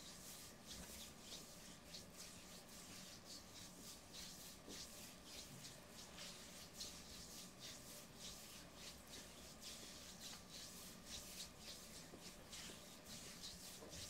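Hands massaging a bare lower leg: faint, quick swishes of palms sliding over oiled skin, a few strokes a second.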